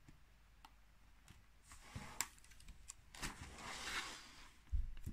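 Plastic card-sleeve pages of a ring binder being handled and turned: a soft rustling swish a little past halfway, with a few faint clicks before it and a dull thump near the end.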